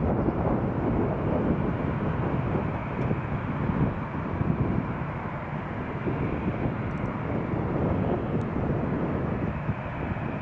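Jet engines of a Boeing 787-8 Dreamliner climbing out after takeoff, heard from behind as a steady, low rumble. The engines are Rolls-Royce Trent 1000 turbofans.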